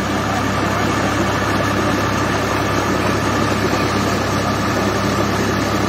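Tractor's diesel engine running steadily under load, driving a belt-driven tubewell pump, mixed with the rush of water pouring from the pump's discharge pipe.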